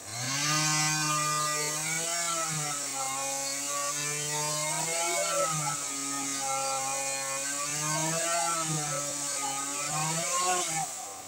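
NW258 two-stroke chainsaw revving up and cutting into a tree trunk, its engine pitch sagging and recovering several times as the chain bites, then easing off near the end.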